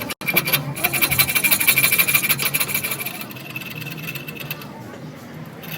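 A bike's rapid rasping, ticking rattle with a high squeal in it, loud for about three seconds and then fading: the unwanted noise that the repair sets out to cure.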